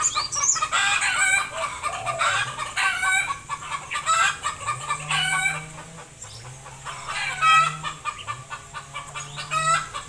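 Chickens clucking over and over, with a low steady drone underneath from about two seconds in.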